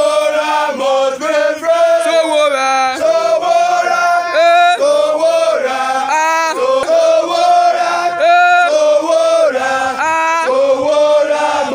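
Male voices singing a chant-like song together in long held notes.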